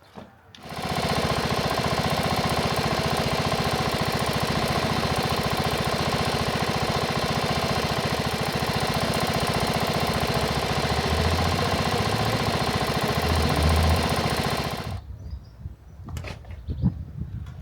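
Ride-on lawn mower's engine running steadily at a constant speed, starting up about a second in and cutting off after about fourteen seconds.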